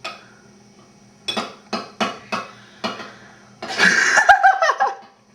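A spoon or utensil clinking and scraping in a cup or bowl of condiments being stirred, a series of sharp knocks. About four seconds in comes a louder noisy burst with a wavering squeal.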